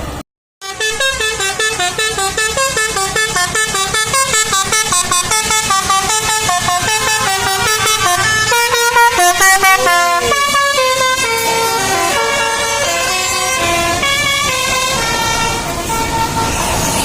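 Basuri 'telolet' multi-tone bus air horn playing a melody: quick runs of short notes that step up and down in pitch, turning to longer held notes in the second half. The sound drops out briefly just after the start.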